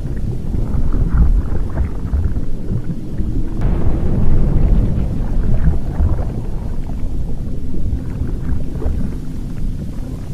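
Volcanic eruption rumbling deep and continuously, with scattered crackling and popping over it, swelling about four seconds in.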